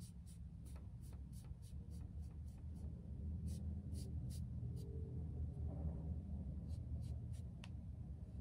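Foam brush dabbing and stroking acrylic paint onto paper on a tabletop: clusters of quick soft taps, about three a second, with pauses between, over a steady low room hum.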